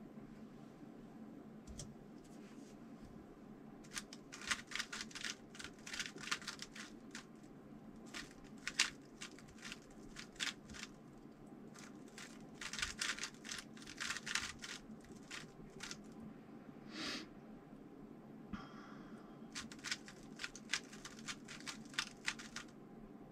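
A 3x3 speedcube being turned by hand: bursts of rapid plastic clicks as the layers are turned, with short pauses between the bursts while the solver recalls the memorised sequence blindfolded. A single short hiss comes about three-quarters of the way through.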